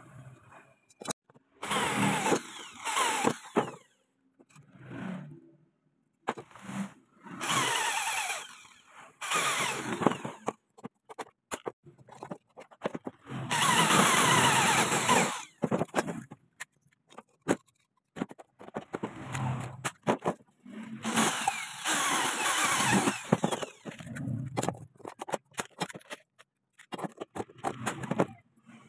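Electric hand drill boring holes in aluminium square tubing in about five runs of one to three seconds each, its motor pitch sliding within each run. Short clicks and knocks of the metal pieces being handled fall in between.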